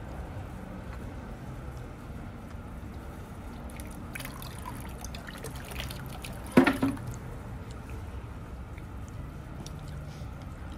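Water trickling from a bamboo spout into a stone tsukubai basin, a steady light splashing. A little past halfway there is a single sharp knock, louder than the water.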